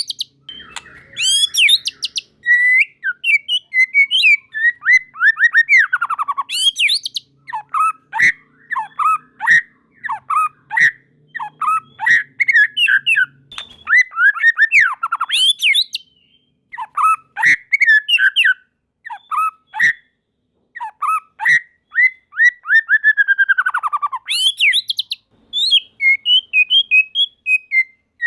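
White-rumped shama (murai batu) singing a fast, varied song of whistles, sharp chirps and falling sweeps, broken by a few short pauses.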